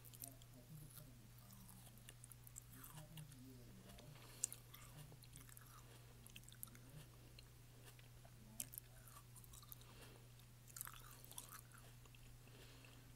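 Close-miked chewing of crunchy food, with scattered sharp crunches, the loudest a little over four seconds in, over a steady low hum.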